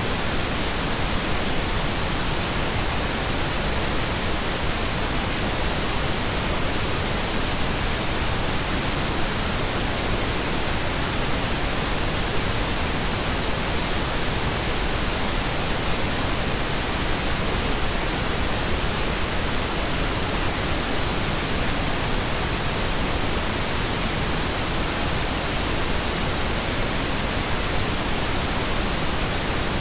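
Steady pink noise: an even, unbroken hiss spread across all pitches, with no changes or events.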